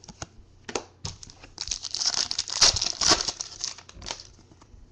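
Foil trading-card pack wrapper being torn open and crinkled: a dense crackle from about a second and a half in to about three and a half seconds, after a few light clicks of cards being handled.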